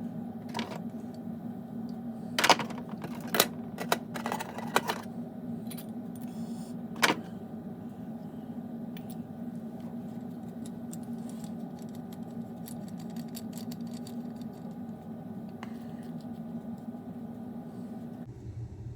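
Sharp metallic clicks and clinks of small engine parts and a valve spring compressor being handled, several in the first seven seconds and fainter ticks after, over a steady low hum.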